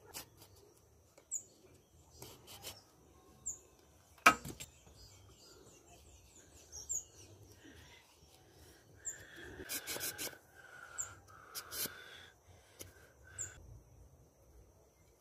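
Knocks and scraping of a machete and a thin stick whittling and working a bamboo cane, with one sharp loud knock about four seconds in and a few louder rasping strokes between about nine and twelve seconds. Small birds chirp briefly now and then over a faint steady high tone.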